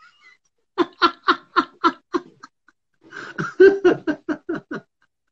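Men laughing hard at a joke, in two bouts of rapid ha-ha pulses about four a second, the second bout louder.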